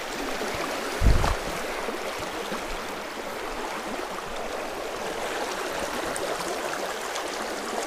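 Shallow stream running over rocks in a riffle: a steady hiss of moving water. A single dull, low thump comes about a second in.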